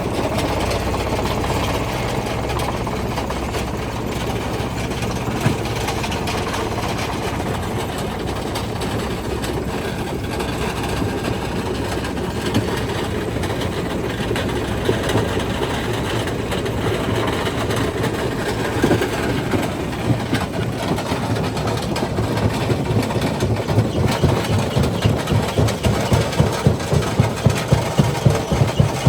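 Primary jaw crusher running, a steady heavy mechanical rumble with rock being ground. In the last several seconds it turns into an even pulsing, a few beats a second.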